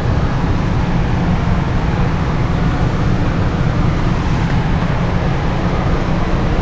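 Steady low rumble and hiss of a large store's background noise, with no distinct events.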